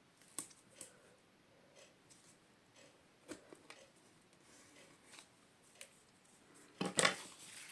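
Double-sided craft tape being laid onto cardstock: scattered small clicks and rustles of tape and paper being handled, with a louder crackle about seven seconds in.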